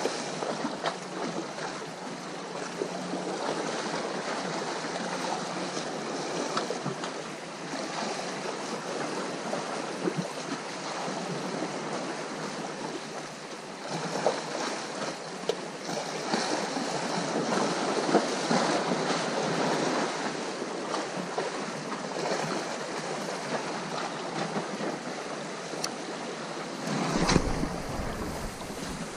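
Sea waves washing against the shore, a steady rushing that surges louder now and then. A gust of wind buffets the microphone near the end.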